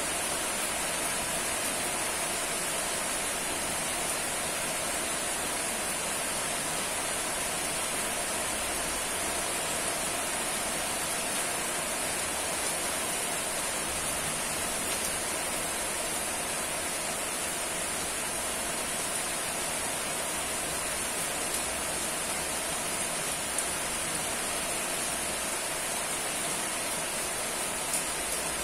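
Steady rainfall, an even hiss of rain with a few faint drop ticks near the end.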